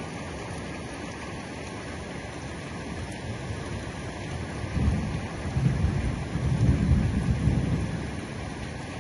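Heavy rain falling steadily, with a low rumble of thunder that swells about five seconds in and dies away over the next three seconds.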